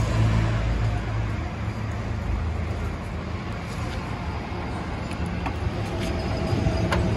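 A vehicle engine idling with a steady low hum, stronger in the first second, over road traffic noise.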